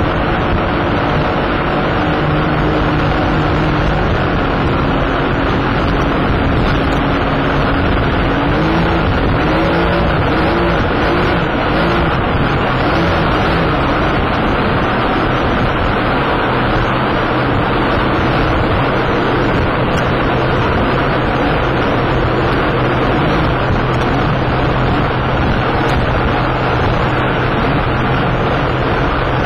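Outboard engines of a rigid inflatable lifeboat running at speed, under a heavy rush of wind and spray on the microphone as the boat crashes through waves. The engine note wavers and slides about 8 to 13 seconds in as the boat rides over the waves, then settles into a steady low hum.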